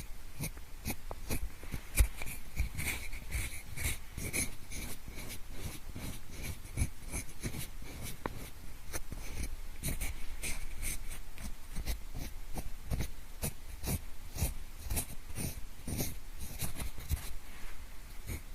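Pencil scraped and tapped close to the microphone in the manner of ear cleaning: a dense run of irregular short scratches and clicks, with one sharper click about two seconds in.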